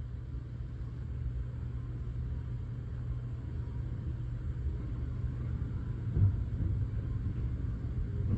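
Steady low rumble of the Sunrise Seto sleeper train, with a single brief louder knock about six seconds in.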